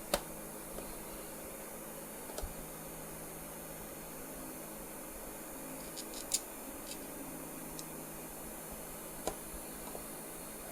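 Quiet room tone with a steady low hum, broken by a handful of faint, short clicks and taps, a few of them close together about two thirds of the way through: small screws and parts being handled while fitting a plastic headlight mask.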